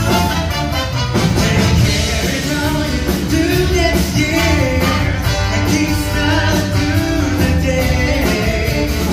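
Upbeat song with singing over a band, with a steady beat.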